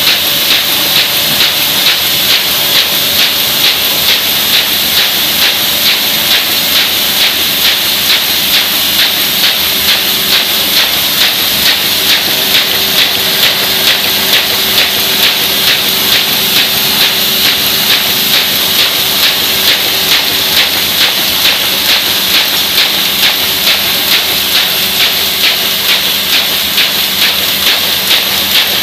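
MBO paper folding machine running, with a steady loud hiss and a fast, even rhythmic clatter as sheets are fed and folded, over a low steady hum.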